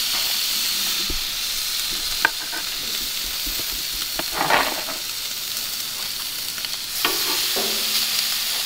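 Bacon-wrapped venison backstrap sizzling on the hot grates of a gas grill, a steady hiss. A sharp click of metal tongs comes about two seconds in, and a short scrape comes near the middle as the pieces are set down.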